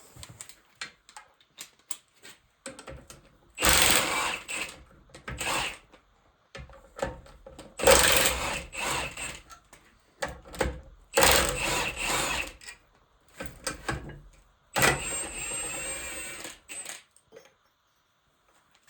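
Metal tool work on an NV4500 manual transmission during teardown: four rattling runs of about two seconds each, with scattered clicks and knocks of parts and tools between them.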